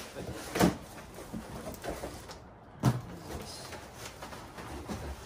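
Handling noise as a large cardboard box is pulled about and its flaps opened, with two sharp knocks, one about a second in and one near the middle.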